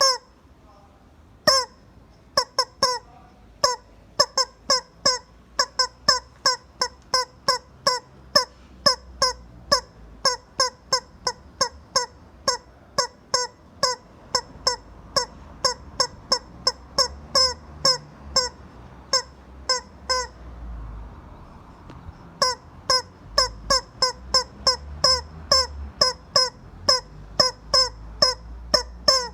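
Rubber chicken squeak toy being squeezed again and again, giving short pitched squeals about two a second. About two-thirds of the way through it stops for a couple of seconds, then starts again.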